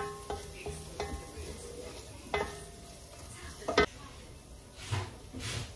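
Onions, garlic and ginger sizzling faintly in a non-stick frying pan while a wooden spoon stirs them, knocking against the pan several times with a short ring, the loudest knock a little under four seconds in.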